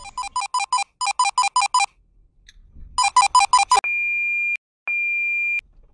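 Electronic beeping: three quick trains of short beeps, about five a second, each beep two-toned. Then two long, high steady beeps near the end.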